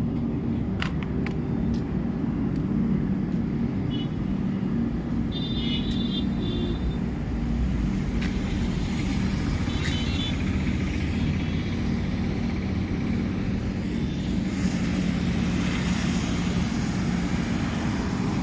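A motor vehicle engine running steadily with road traffic noise around it. A few brief high chirps sound a few seconds in and again about ten seconds in, and a louder rushing noise joins for the last few seconds.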